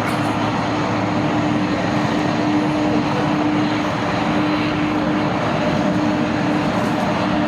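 Jet airliner engines running steadily: an even rushing noise with a constant hum underneath.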